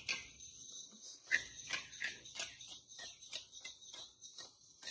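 Hand-twisted spice mill grinding seasoning, a quick, even rasping about four grinds a second.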